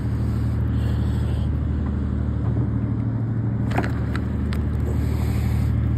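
Boat engine running steadily at idle, a constant low drone. A few sharp clicks and knocks come in about four seconds in.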